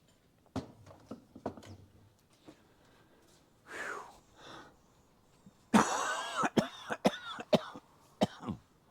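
A man coughing and clearing his throat after breathing in soldering flux fumes. A few short coughs and a gasp come first, then a loud, harsh coughing fit starts about six seconds in.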